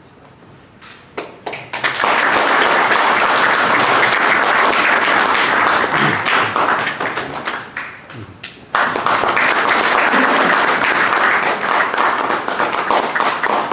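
Audience applauding: a few scattered claps about a second in build to full, steady applause by about two seconds. It dips briefly around eight seconds, then comes back suddenly at full strength and carries on.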